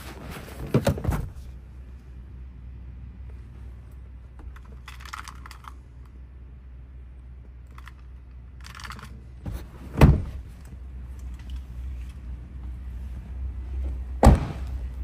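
Light clicks and rustles of handling inside an SUV's cabin, with two sharp heavy thumps, one about ten seconds in and one near the end, over a steady low hum.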